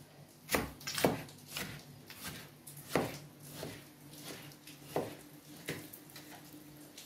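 Kitchen knife dicing tomato on a plastic cutting board: separate, irregular knocks of the blade striking the board, roughly half a second to two seconds apart.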